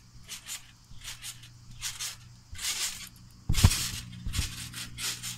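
A child bouncing on a trampoline: a run of soft, quick strokes as he bounces on the mat, then one heavy thump about three and a half seconds in as he lands on his back for a kaboom, which flips him over.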